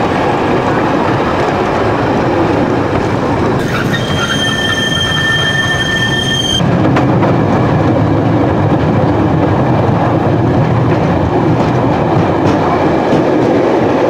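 Vintage electric tram running on its track, heard from on board: a steady rumble of wheels on rails. About four seconds in, a high wheel squeal sounds for about three seconds. After that the rumble grows deeper and louder.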